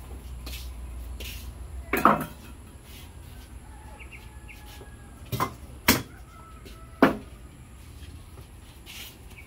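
Metal cookware clanking: a pot, its lid and feeding bowls knocked and set down, giving four sharp clanks with a short ring, the first about two seconds in and the others a few seconds later.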